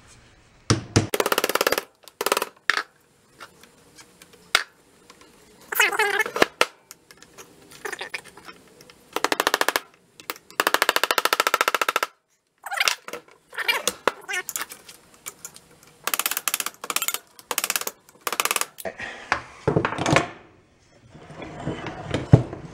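Hammer striking a screwdriver wedged into the joint of an old outboard motor's metal lower-unit housing. It comes in several runs of quick, rapid taps with short pauses between, as the housing is driven apart.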